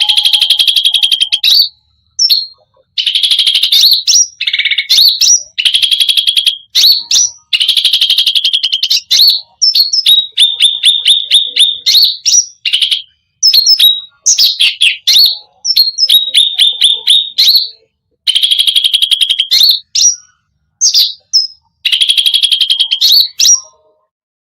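Cucak rante singing a loud, fast rattling trill song. It comes in phrases of about one to two seconds with short breaks between them, mixed with short sharp upslurred notes, and it stops shortly before the end.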